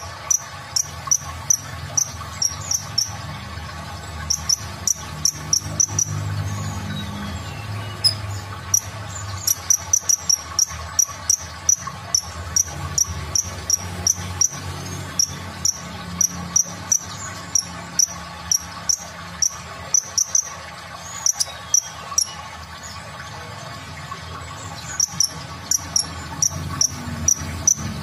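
Van Hasselt's sunbird (kolibri ninja) calling in rapid runs of short, high-pitched chips, several a second. The runs last a few seconds, with brief pauses between them.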